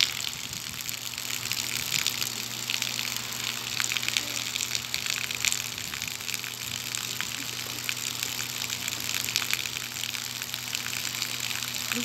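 Steady rush of gushing water, a constant hiss full of small crackles, with a faint low hum underneath.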